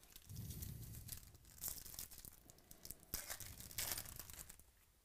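Foil wrapper of a Topps Chrome baseball card pack being torn open and crinkled by hand, with a few sharper, louder rips partway through; it stops shortly before the end.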